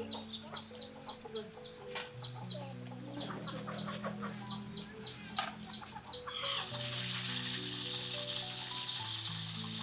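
Chicks peeping: rapid, short, high cheeps that fall in pitch, about three a second. About two-thirds of the way through they give way to the steady sizzle of a whole chicken frying in hot oil in a wok. Soft instrumental music plays underneath.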